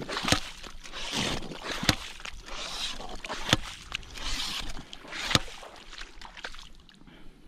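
Yabby pump being worked in wet sand: repeated strokes, each with a sharp clack and a wet gush as sand and water are sucked up and squirted out onto the flat, about every second and a half. It settles down near the end.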